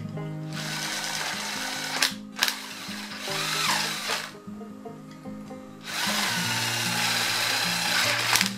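Cordless impact driver fitted with a drill bit, boring out a hole in a small metal plate held in locking pliers to widen it bit by bit. It runs in three bursts: about a second and a half, then about two seconds, then a longer run of about two and a half seconds near the end.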